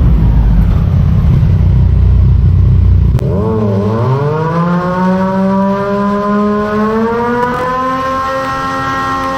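Aprilia Tuono V4 motorcycle engine through an SC-Project SC1-R exhaust. A heavy low rumble lasts about three seconds; then, after a sudden change, the engine note dips briefly and climbs slowly and steadily as the revs rise under acceleration.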